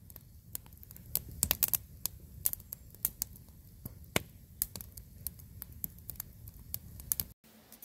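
Wood fire crackling, with irregular sharp pops over a low steady rumble of burning; it cuts off abruptly shortly before the end.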